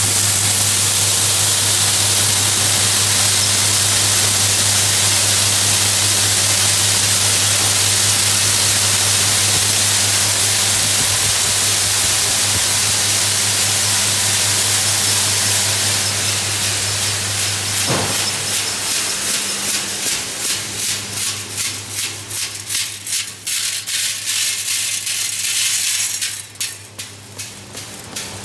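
Chickpea screening machine running: a loud, dense hiss of chickpeas pouring and rattling across its shaking wire-mesh sieve, over a steady motor hum. About two-thirds of the way through the hum stops and the grain noise turns into a pulsing rattle, a few beats a second.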